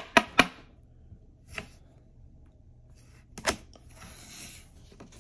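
Trading cards in rigid plastic top loaders being handled and set down on a table: a few sharp plastic clicks and taps, two close together at the start and a louder one about three and a half seconds in, with light rustling of cards.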